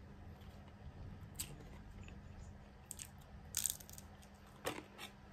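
A person biting and chewing crisp fried food: a few short crunches, the loudest about three and a half seconds in, over a faint low steady hum.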